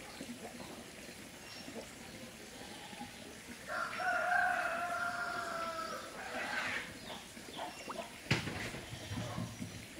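A rooster crowing once, a single drawn-out call of about two seconds starting about four seconds in. A short sharp click follows near the end.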